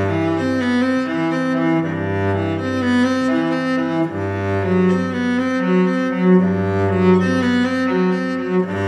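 Background music of bowed strings, with low held notes that change every second or two under higher sustained lines.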